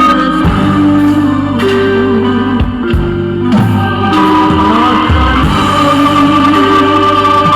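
Music playing: long held notes that shift in pitch every second or so over a steady bass.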